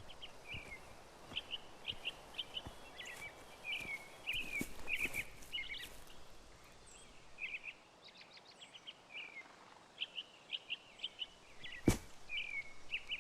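Songbirds chirping, short high calls repeated over a faint outdoor background, with one sharp knock near the end.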